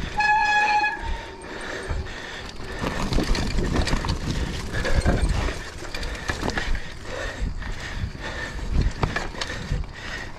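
Mountain bike riding over a root-covered trail: tyres and frame rattle with repeated knocks as the bike bounces over roots. A brief steady squeal sounds in the first second.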